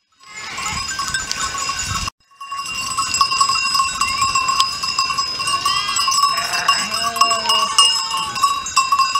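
Many livestock bells on a moving flock of sheep and goats clanging together without a break, with a few sheep or goat bleats about six to seven seconds in. The sound drops out briefly about two seconds in.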